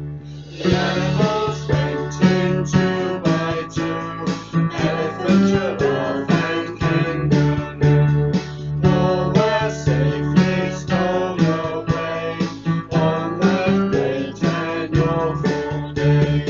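Instrumental music: an acoustic guitar strumming chords in a steady rhythm, starting about half a second in.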